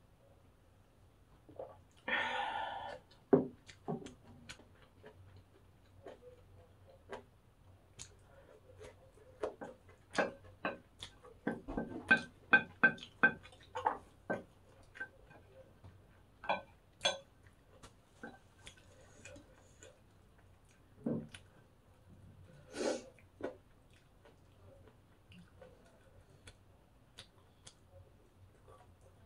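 Close-up eating sounds: a slurp of kimchi broth from a glass bowl about two seconds in, then a spoon and chopsticks clicking and scraping on a ceramic plate, with chewing, in a run of quick clicks through the middle and a few louder strikes later.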